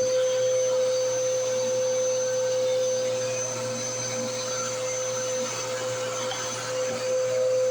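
Bissell CleanView Rewind 3534 upright vacuum cleaner running steadily as it is pushed over the floor, with a strong steady motor whine and a fainter high whistle above it.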